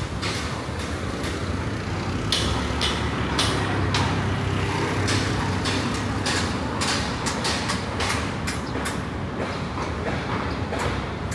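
Footsteps of a person walking on pavement, a step about every half second, over the steady low hum of city traffic.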